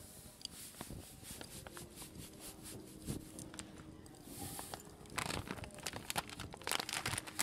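Cacao powder being sifted through a fine mesh sieve: a run of soft scratchy taps and rattles from the shaken sieve, with a brief hiss of falling powder, growing busier and louder over the last two seconds or so.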